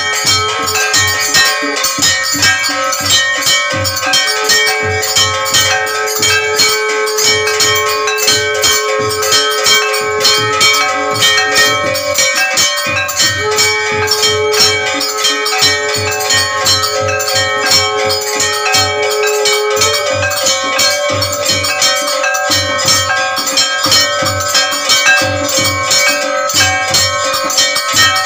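Temple bells ringing continuously and rapidly during an aarti, their clanging overlapping, over a steady low beat. A long held tone sounds twice above them.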